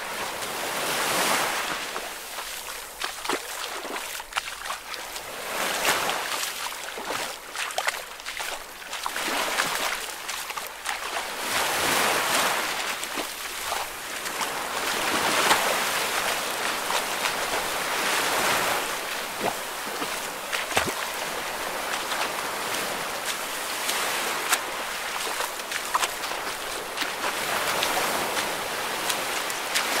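Water waves washing and splashing in a continuous hiss that swells and ebbs every three or four seconds, with small splashes between.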